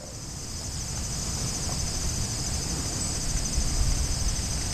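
Steady, finely pulsing chorus of insects in summer grass, with a low steady rumble underneath.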